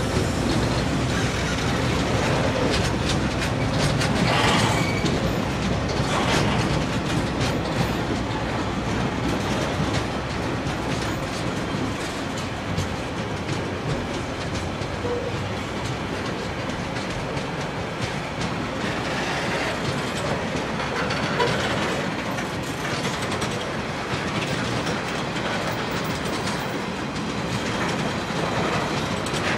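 Freight wagons of a passing TasRail train, container flats and then empty log wagons, rolling by close at a steady speed: a continuous rumble of steel wheels on rail with clickety-clack over the rail joints.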